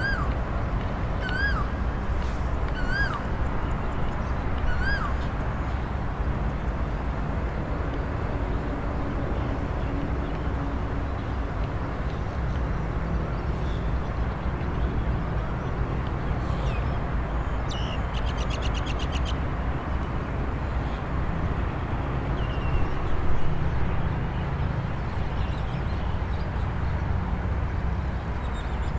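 A bird repeats a short arching whistled note four times in the first five seconds, over a steady low rumbling background. A brief rapid rattling trill comes about two-thirds of the way through.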